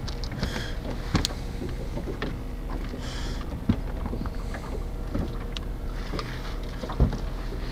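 Scattered light knocks and clicks in a fishing boat over a steady low hum, with a sharper knock about a second in, another near the middle and a thud near the end.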